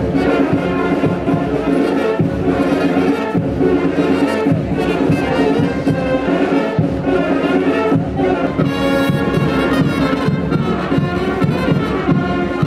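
Brass band music playing a Bulgarian horo dance tune with a steady beat.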